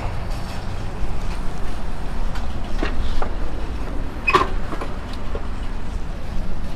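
A steady low rumble with a few light clicks and one sharper metallic clink about four and a half seconds in, as an e-bike is wheeled up and parked.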